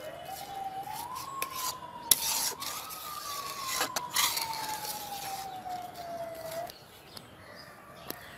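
Metal spatula scraping and stirring thick palm fruit pudding against the sides of a metal pot, the loudest scrapes about two and four seconds in. Under it a single long tone rises and then slowly falls, stopping about two-thirds of the way through.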